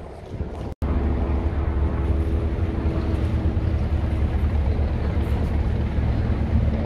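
Military helicopter flying low overhead: a loud, steady low rotor beat with an engine drone, cutting in suddenly about a second in. Before that there is wind noise on the microphone.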